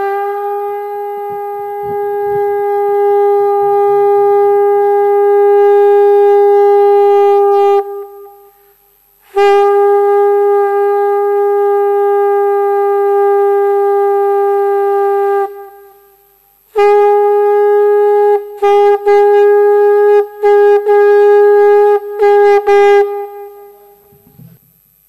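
Conch shell (shankh) blown at the close of the aarti: three long blasts, each held at one steady pitch, the third broken into several short blasts near the end.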